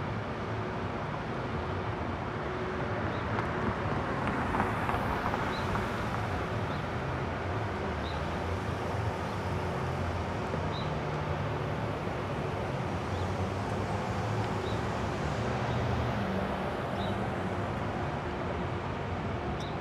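Road traffic at a signalled intersection: cars and pickup trucks driving by with a steady rumble of engines and tyres. A faint, high tick repeats about once every second and a quarter throughout.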